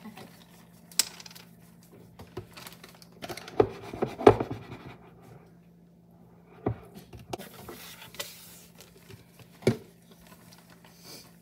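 Kitchen prep handling noises: sharp knocks and taps of utensils and containers on a bowl and counter, busiest near the middle. There is a brief rustle of the plastic bag of powdered sugar, over a steady low hum.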